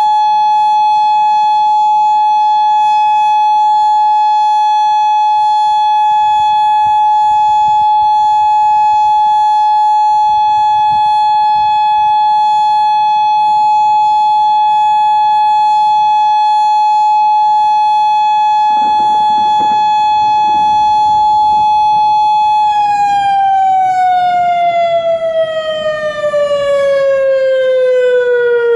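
Outdoor tornado warning siren sounding a long steady tone for over twenty seconds, then winding down with its pitch falling steadily. A brief rush of noise passes about nineteen seconds in.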